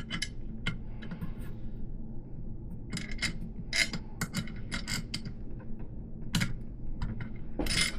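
Irregular metallic clicks and clinks of a 3/8-inch solid BMX axle being wiggled back and forth and worked out of the hub and fork dropouts, over a steady low hum.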